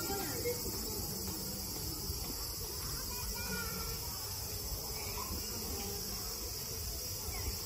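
Steady high-pitched chirring of an insect chorus.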